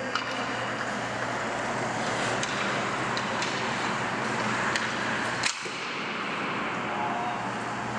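Ice hockey skates scraping and carving on rink ice, with a stick tapping the puck a few times, then one sharp crack of a shot about five and a half seconds in. A steady low hum runs underneath.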